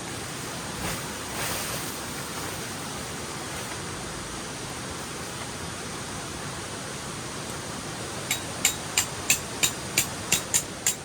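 Steady rushing of a river. About eight seconds in, a quick, even run of light ticks starts over it, about three a second.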